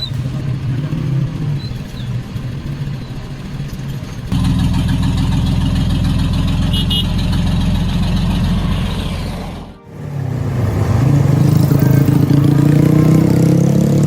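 Heavy vehicle's diesel engine running, with abrupt edits between shots: a steady, louder engine note comes in about four seconds in, and over the last few seconds the engine revs up with a steadily rising pitch.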